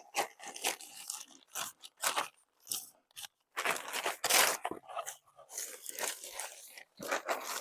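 Plastic sheeting crinkling and crunching in irregular bursts as it is handled and stapled down, with a few short sharp snaps of a hand staple gun.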